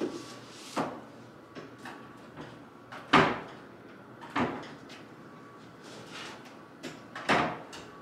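Office storage cabinet being opened, rummaged in and shut: a series of separate knocks and bumps from its doors and the things handled inside, the loudest about three seconds in.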